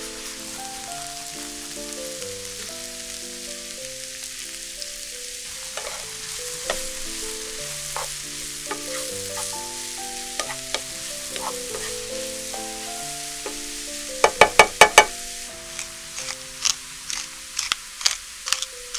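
Sliced onions and button mushrooms sizzling in a frying pan over background music. About three-quarters through, a quick run of sharp clicks from a pepper mill grinding black pepper over the pan, followed by scattered clicks near the end.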